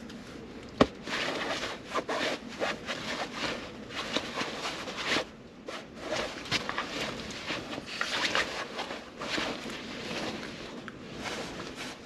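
Irregular rustling and scuffing of a duvet as a hand wrestles with a small terrier at play, with one sharp knock about a second in.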